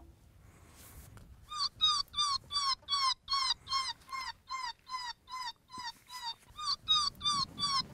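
Electronic predator call playing a distress sound through its speaker: a fast, even string of short, high yelps, each dropping in pitch, about three a second, starting about a second and a half in.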